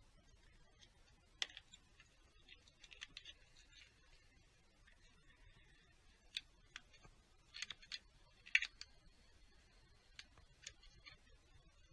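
Scattered light clicks and taps as a hand handles plastic parts and wiring on top of a diesel engine. There are a few single clicks and small clusters, the loudest about a second in and about halfway through.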